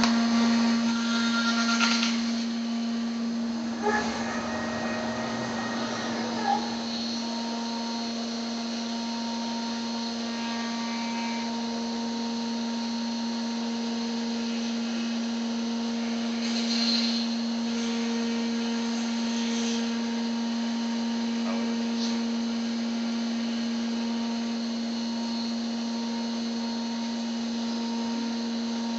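CNC router spindle running at a steady speed with a constant hum and whine, with a few brief louder patches of cutting noise, about 2 and 4 seconds in and again near 17 and 19 seconds.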